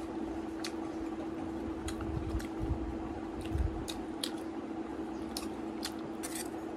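Close-up eating sounds: chewing and mouth smacking as food is spooned from a stainless steel bowl, with scattered short sharp clicks, over a steady low hum.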